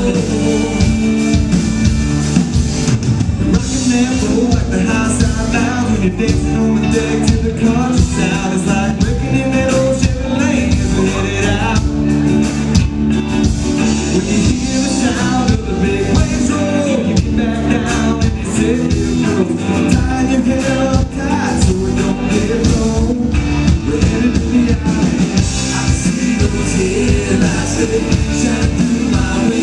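A rock band playing live: a male singer over electric guitars and drums, with a steady beat throughout.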